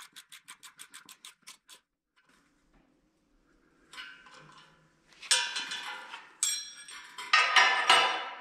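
Hand ratchet with a socket clicking quickly, about seven clicks a second, while tightening a nut on the metal bender's bolt; it stops about two seconds in. Then a few seconds of loud metal clattering and clinking as steel tools are handled on a metal workbench.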